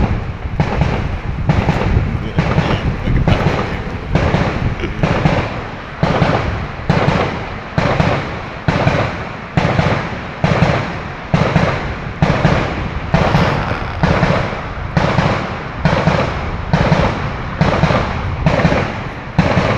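A fireworks barrage firing shot after shot at a steady pace, about one loud bang a second, each bang fading out before the next.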